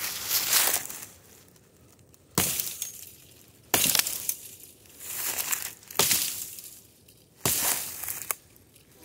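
Axe blows chopping into a tree, about half a dozen sharp strikes a second or two apart, each followed by a second or so of fading rustle.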